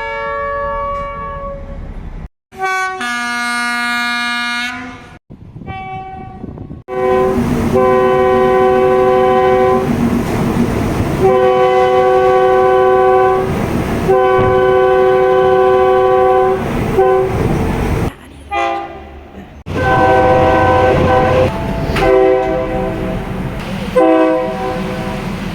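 Multi-note train horns sounding chords in a run of spliced clips. There are short blasts in the first few seconds, then three long blasts of about three seconds each from about seven seconds in, and several shorter blasts near the end.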